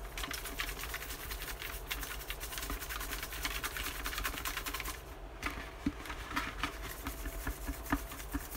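A plastic jack-o'-lantern treat pail being shaken, the drawing entries inside rattling and rustling in a fast jumble of small clicks.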